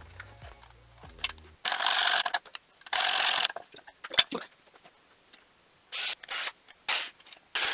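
Several short bursts of hissing tool noise, each about half a second, from working a piece of scrap aluminum, with one sharp click about four seconds in.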